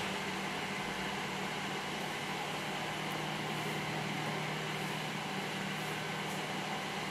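Steady hiss with a faint low hum: room tone, with a brief click at the very start.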